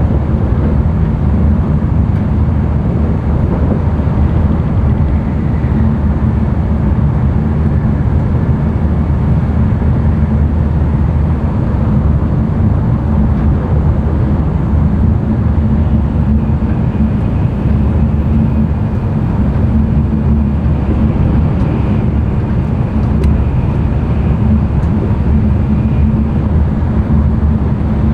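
Running noise of an N700-series Tokaido Shinkansen at speed, heard inside the passenger car: a loud, steady low rumble of wheels on rails. A faint high whine joins it about halfway through.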